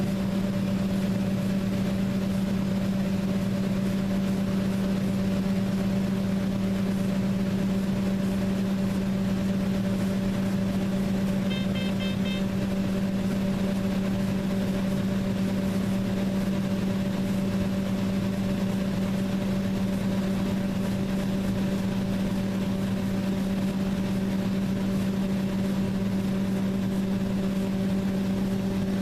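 Combine harvester running steadily, a constant hum. About twelve seconds in comes a brief run of quick high beeps.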